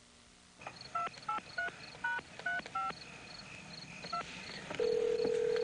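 Touch-tone telephone being dialed: seven quick dual-tone keypad beeps, six in a run and the last after a short pause. Near the end the ringing tone comes on the line. Crickets chirp steadily behind.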